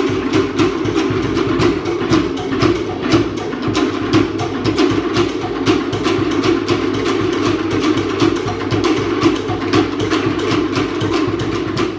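Background music of fast, steady drumming, about five strikes a second.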